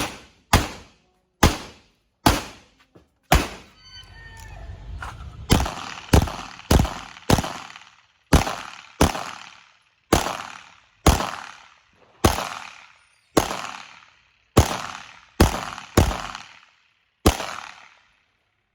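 A gun fired in a fast, irregular string of about twenty shots, each shot cracking sharply and dying away over a fraction of a second, roughly one every half second to a second.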